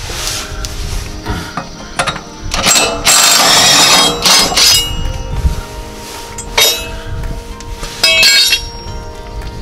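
Cordless impact tool hammering in bursts as it loosens a mower blade bolt, the longest lasting about two seconds near the middle, over background music.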